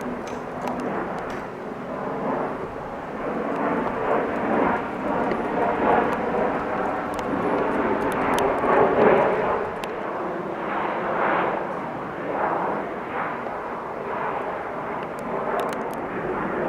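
Boeing 737 MAX 10 airliner flying over low, the roar of its twin CFM LEAP-1B turbofans swelling to its loudest about nine seconds in, then easing slightly as it passes.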